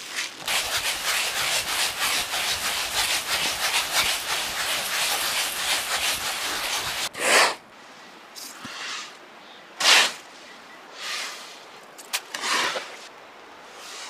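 Dry rapeseed hissing and rustling as it is worked by hand for about seven seconds, then a run of short pours of seed from a wooden scoop into a bamboo basket, each a brief rushing hiss.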